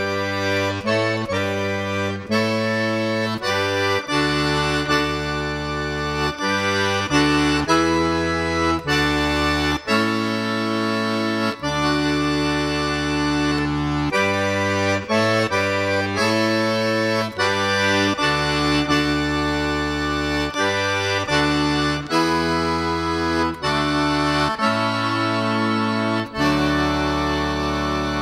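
Accordion playing a Polish highland (góralski) carol tune without singing, the melody over bass chords that change every second or two.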